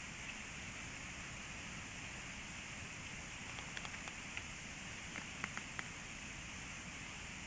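Steady even hiss, with a scattering of faint, short ticks starting about halfway through and bunching together near the end.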